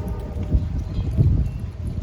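Low, uneven rumble of a freight train led by GE diesel locomotives going by, with wind buffeting the microphone. A faint horn note fades out in the first second.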